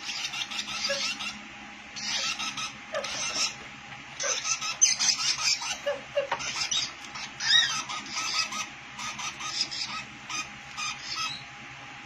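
Lovebird chick giving rapid, raspy chirps in short clusters about a second apart, with a few higher squeaky calls about seven and a half seconds in.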